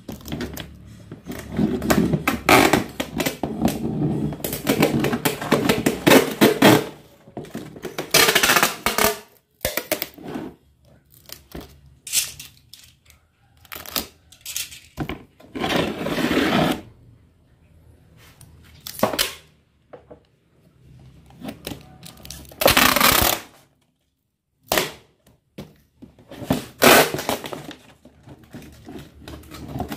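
Clear packing tape ripped off the roll in a series of short, noisy pulls and pressed down over a paper address label on a plastic fruit crate, with hands rubbing the paper and plastic between pulls.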